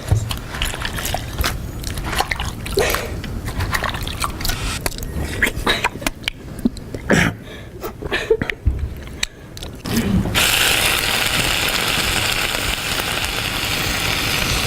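Loud, wet mouth noises from someone eating deliberately noisily: a run of sharp smacks and clicks. About ten seconds in, a steady, even hiss begins and carries on to the end.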